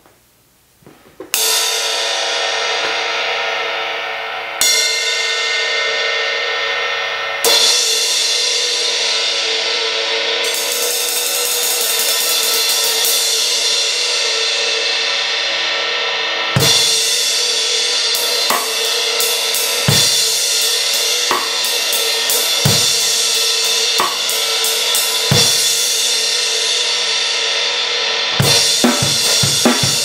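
Zildjian 17" Z Custom Medium Crash cymbal struck three times, a few seconds apart, each crash left to ring out. It is then played continuously with quick stick strokes. From about halfway it is hit roughly every second and a half with a bass drum thump under each hit, and near the end busier drum kit playing joins in.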